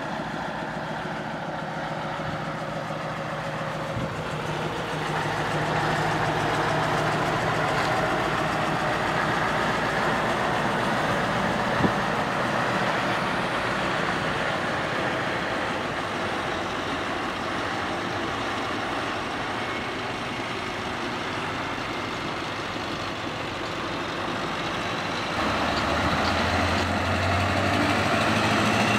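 Heavy Scania trucks' diesel engines running as the trucks drive slowly past one after another. The sound steps louder twice, about five seconds in and again near the end, as the footage moves from one truck to the next.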